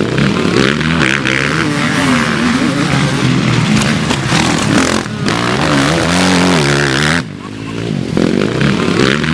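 Four-stroke motocross bike engine on a track, revving up and down as it accelerates and eases off. The throttle is chopped briefly about five seconds in and again a little after seven seconds, each time picking straight back up.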